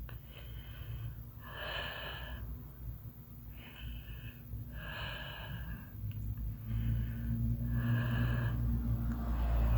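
A sleeping person snoring: noisy breaths in and out every second or so, with a low rumbling snore that grows louder in the second half.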